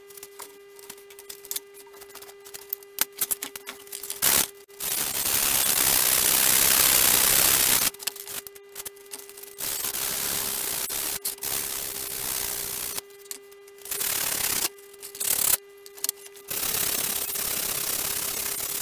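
Hand-sanding of a wooden model-aircraft tail piece. A few seconds of light clicks and knocks from handling give way, about four seconds in, to runs of steady sanding noise broken by short pauses. A steady hum sounds underneath throughout.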